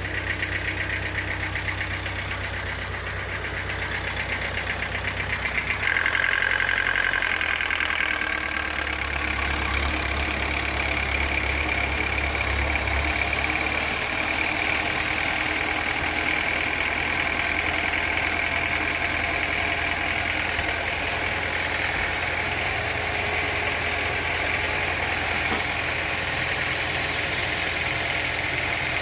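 Sawmill machinery running steadily, with a motor's drone and a higher whine that sets in about six seconds in.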